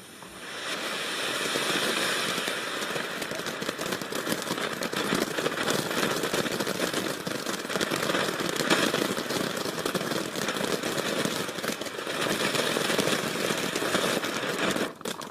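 A ground firework burning with a steady hiss and dense crackling. It starts at once and cuts off suddenly after about fifteen seconds.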